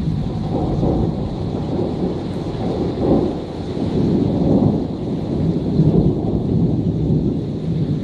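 Long rolling thunder, a low rumble that swells and fades a few times without a sharp crack, over steady rain.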